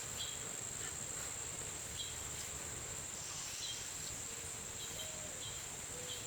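Insects, likely crickets, trilling in a steady high-pitched chorus, with a few faint short chirps over it.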